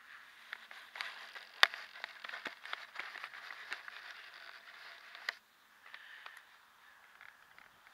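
Handling noise right on a small action camera's microphone: rustling and scraping with many sharp clicks and knocks, one click about a second and a half in louder than the rest. It stops abruptly after about five seconds, leaving faint rustling.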